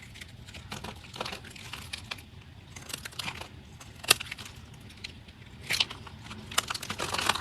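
Blade cutting through a dry bar of soap: irregular crisp crunches and crackles, with one sharp crack about four seconds in.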